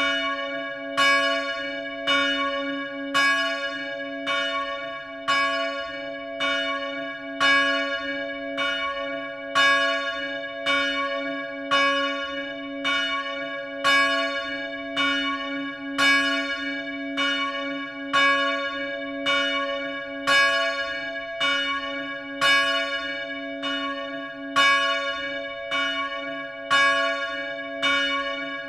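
A church bell ringing, struck at a steady, even rhythm, each stroke ringing on into the next over a sustained low hum.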